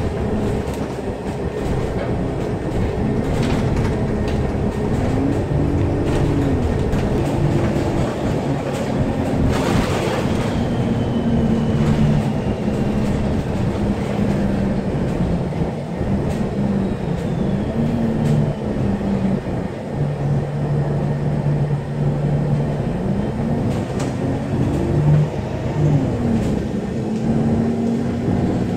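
A moving vehicle running, its motor hum stepping and gliding up and down in pitch several times over a constant low rumble, with a brief hiss about ten seconds in.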